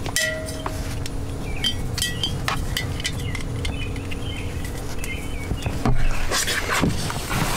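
Scattered light clicks and clinks of small parts being handled, with a few short bird chirps and a steady low hum; a louder rustling, clattering stretch comes about six seconds in.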